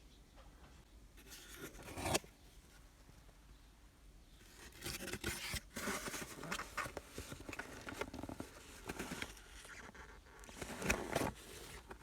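Hand-handling noise around a car shift knob: scraping and rustling in irregular bursts with a few sharp clicks, loudest about two seconds in and near the end.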